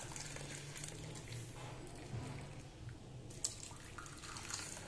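Hot kadha (spiced herbal decoction) pouring through a plastic tea strainer into drinking glasses: a faint, steady trickle and drip of liquid, with one light click about three and a half seconds in.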